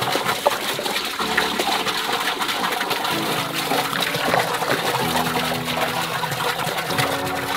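A thick stream of soda pouring from a large plastic jug into a big hollow container, a steady gushing and splashing of liquid.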